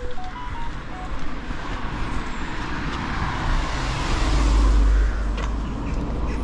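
A road vehicle driving past close by, its engine and tyre noise swelling to its loudest about four to five seconds in, with a deep rumble, then easing off.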